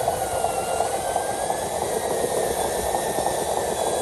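The electric motor and geared drive of a loaded radio-controlled dump truck run steadily under load as it crawls up a muddy slope, with a faint whine that drifts gently up and down in pitch.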